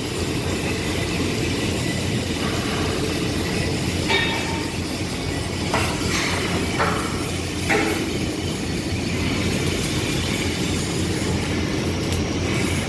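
Arc welding crackling steadily, a dense continuous sizzle, with a few brief sharper sounds near the middle.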